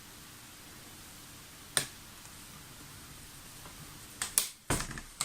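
Small sharp clicks and knocks of a laptop and tools being handled: one click about two seconds in, then a quick cluster of clicks and taps near the end.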